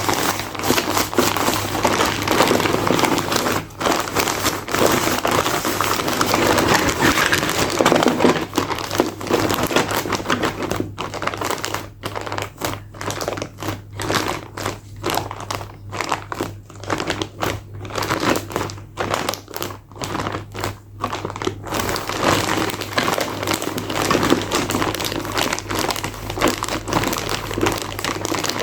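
Packaging of toy cars crinkling and rustling as it is handled and unwrapped. It runs as continuous crinkling at first, breaks into short separate crackles through the middle, then goes back to continuous rustling near the end.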